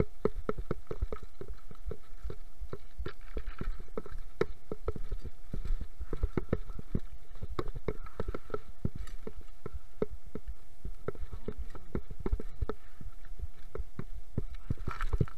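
Mountain bike rattling and clattering over loose rock on a fast descent: a continuous run of sharp knocks several times a second from tyres striking stones, the chain slapping and the frame and suspension jolting, over a low rumble.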